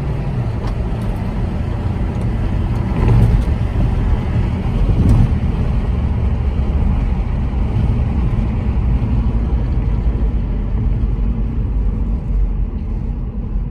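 2003 VW Beetle GLX with a 1.8-litre turbo engine and automatic gearbox, heard from inside the cabin while driving on the road: a steady low rumble of engine and tyres, swelling louder briefly about three seconds in and again about five seconds in.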